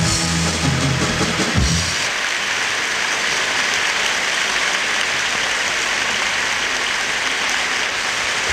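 Closing bars of a pop band with drums, ending about two seconds in, followed by steady audience applause.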